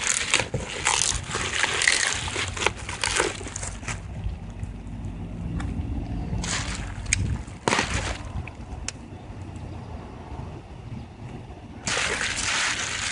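Packaging around a new car headlight assembly being handled and unwrapped: bursts of rustling and crinkling, easing off after about four seconds into a few scattered clicks and rustles, then picking up again near the end. A low hum runs for a few seconds in the middle.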